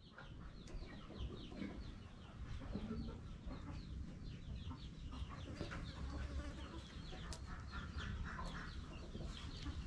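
Chickens clucking and cheeping, many short falling chirps overlapping, over a steady low rumble.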